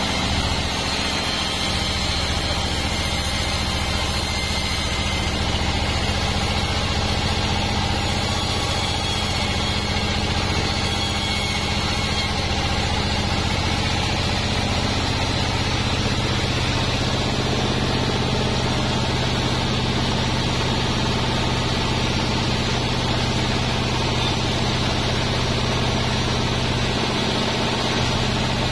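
Band sawmill running with a steady drone as its blade saws lengthwise through a durian log, taking off a slab.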